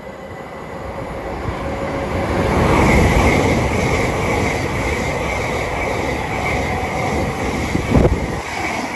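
Electric multiple-unit passenger train passing through the station, its rumble building to a peak about three seconds in and staying loud, with a steady high whine. A brief thump comes near the end.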